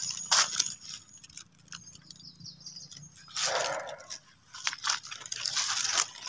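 Footsteps crunching on dry leaf litter and brushing through low undergrowth, in irregular steps, with a longer rustle about three and a half seconds in.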